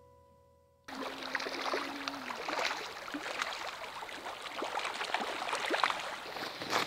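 Shallow river rushing and babbling over gravel, starting abruptly about a second in after the last of some music fades out.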